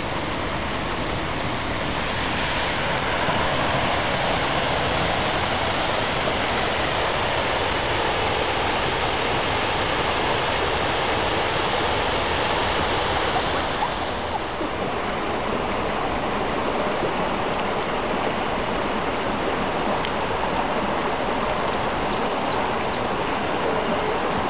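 Stream water rushing steadily. A little past halfway the rush turns slightly duller, and a few faint high chirps come near the end.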